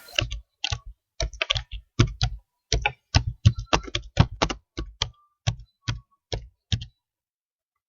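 Computer keyboard being typed on, a run of irregular keystrokes, a few a second in uneven clusters, that stops about a second before the end.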